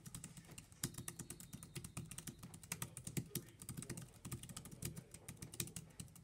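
Fast typing on a Jelly Comb B047 foldable keyboard: a quick, uneven run of key clicks, several keystrokes a second.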